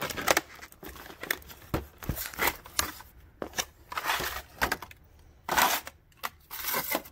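Plastic blister packaging of socket sets crinkling and clicking as it is gripped and moved around, in irregular bursts with short quiet gaps.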